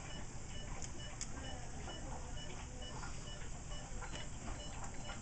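Bedside patient monitor beeping softly at a regular pace, about two short high beeps a second, over a low steady hum of hospital equipment.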